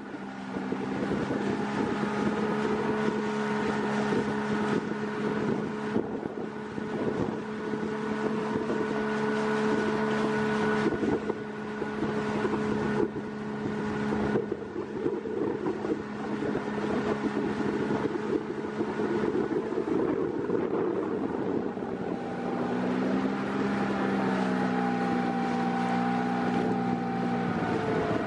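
Small outboard motor on a dinghy running steadily under way, with wind rushing on the microphone. The engine's pitch shifts a little in the last few seconds.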